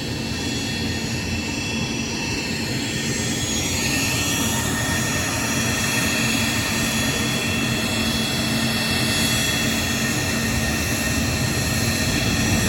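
Private jet's turbofan engines running with a steady rush and a high whine of several held tones, growing slightly louder toward the end.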